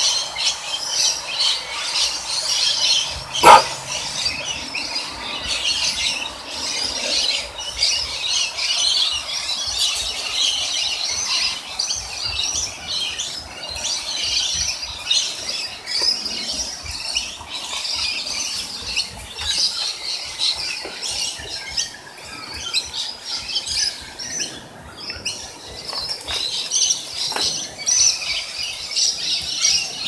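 Rainbow lorikeets chattering and screeching continuously in a dense stream of high, shrill calls. A single sharp click cuts through a few seconds in.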